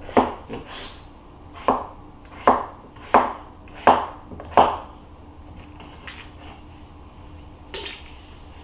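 Kitchen knife chopping a vegetable on a plastic cutting board: about seven sharp knocks, a little under a second apart, over the first five seconds, then a single knock near the end.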